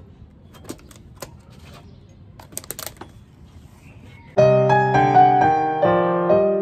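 A few light clicks and knocks of plastic food tubs being handled and set down on a wooden table. About four seconds in, piano music starts suddenly and is much louder.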